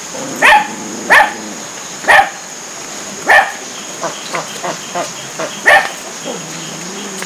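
A dog barking: five loud barks at uneven gaps of about one to two seconds, with quieter barks in between from about four seconds in.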